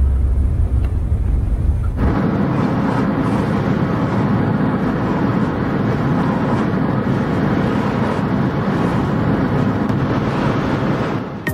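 Steady road and wind noise inside a moving car. It starts as a deep rumble and changes abruptly about two seconds in to a broader, even rushing.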